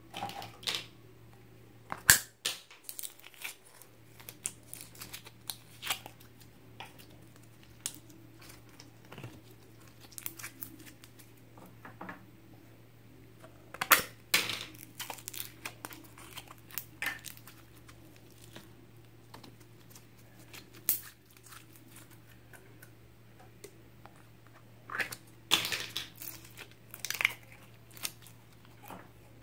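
Plastic slime tubs and lids being handled and opened while slime is squeezed out and dropped into a glass dish: irregular sharp clicks, crinkles and sticky crackles. A loud snap comes about two seconds in, with busier clusters of clicks midway and near the end, over a steady low hum.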